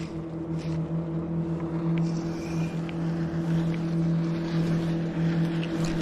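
Motorboat engine running steadily on the river, a constant low drone that grows slightly louder as the boat comes closer.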